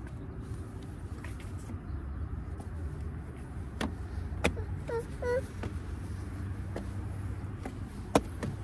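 A toddler's steps and knocks on perforated metal playground steps: a few sharp taps, the loudest near the end, over a steady low rumble. A couple of short vocal sounds about halfway through.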